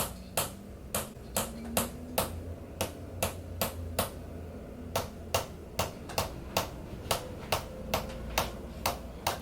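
Hand-held chiropractic adjusting instrument tapping on the right shoulder: sharp, evenly spaced clicks about two to three a second, with a short pause about four seconds in.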